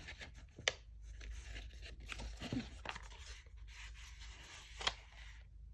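Quiet rustling of paper packaging being handled as it is worked open, with scattered sharp clicks, the clearest less than a second in and again near the end.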